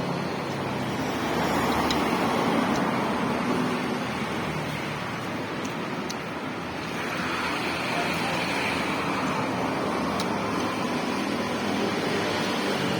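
Steady road noise of a moving vehicle, swelling slightly about two seconds in and again about seven seconds in.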